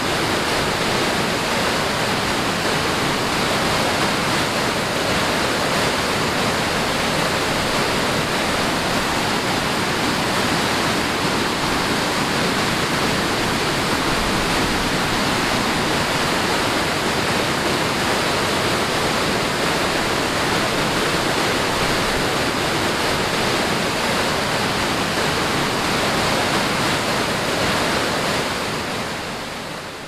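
Steady roar of a wide river waterfall, water pouring over a broad rock ledge into rapids, fading out near the end.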